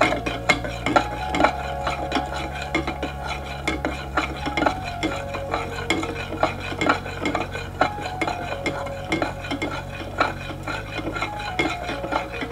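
A teaspoon stirring buffer powder into water in a small clear plastic cup, clinking and scraping against the cup's side in quick repeated strokes, a few clicks a second, while the powder dissolves.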